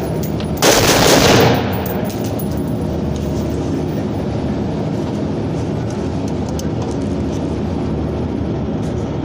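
A rapid string of gunshots lasting about a second, starting about half a second in, followed by steady background noise.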